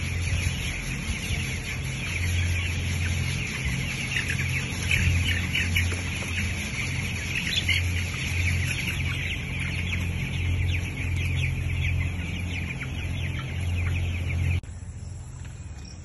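A large flock of young broiler chickens peeping and chirping constantly over a steady, pulsing low hum. It cuts off near the end.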